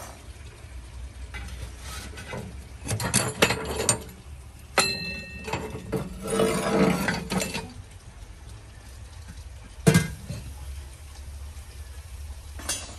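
Metal clanking and scraping at a wood-burning stove: rebar pokers knocking and scraping against the iron hob rings while the fire is stirred. One clang rings on briefly about five seconds in, and a sharp knock comes near ten seconds.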